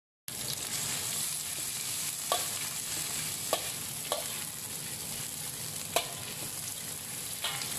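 Sliced shallots and red chillies sizzling in hot oil in a wok, stirred with a metal spatula that clinks sharply against the pan about five times.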